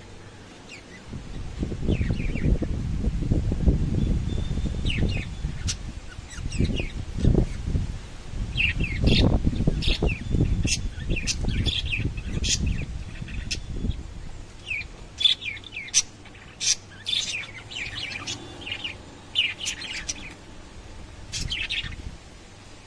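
Lovebirds chirping: short, high-pitched chirps, sparse at first and coming thick and fast from about eight seconds in. A low rumbling noise runs underneath, strongest in the first half.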